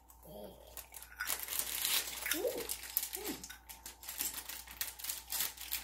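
Plastic packaging crinkling and rustling as it is handled, with a few brief soft vocal sounds from a child.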